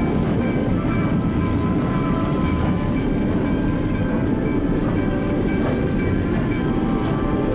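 Passenger train running along the track: a steady, continuous rolling rumble with a few faint sustained higher tones over it.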